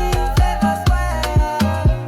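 Afrobeat instrumental music with a steady kick-drum beat, bass and melodic synth lines.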